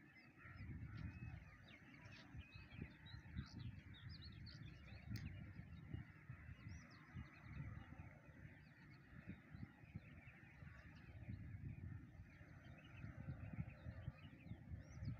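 Many small birds chirping and calling together in a busy morning chorus, over a low, uneven rumble that carries the loudest moments.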